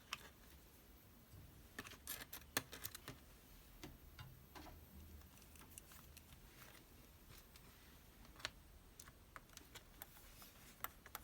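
Near silence broken by faint, scattered small clicks and ticks of a precision screwdriver and tiny screws against a laptop's metal bottom cover as the screws are set in.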